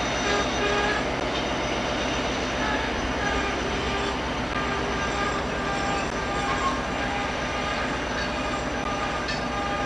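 VIA Rail passenger coaches rolling past on the rails, a steady rumble of wheels on track. Short, repeated whining tones come and go over it.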